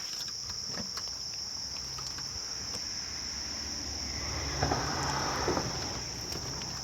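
Insects trilling steadily at a high pitch. About four and a half seconds in, a brief rustling with a few soft knocks.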